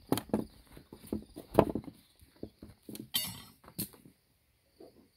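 A metal hive tool knocking and scraping against a wooden beehive box as it is pried at: a series of sharp knocks, the loudest about one and a half seconds in, and a short rattling scrape about three seconds in.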